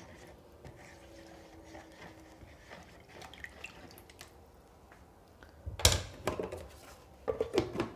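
Silicone spatula stirring a thin liquid of yeast, sugar, warm milk and water in a plastic bowl, with faint scrapes and small splashes. Just before six seconds in there is a loud knock as the spatula is set down on the counter, then a few more knocks near the end.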